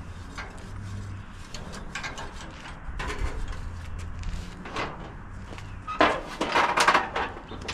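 Sheet-metal clanks and rattles as the Model A Ford's grille shell is worked loose and lifted off the front end, with scattered knocks at first and a loud cluster of clatter near the end.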